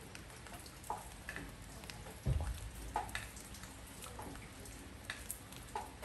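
Rain falling on a porch: a steady hiss of rain with scattered single drips plinking, and one dull low thud a little over two seconds in.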